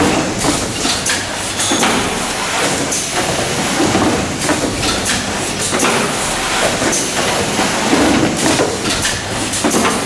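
Automatic carton erector running, opening and folding cardboard boxes: continuous machine clatter with frequent sharp clacks from its moving arms and pneumatic parts.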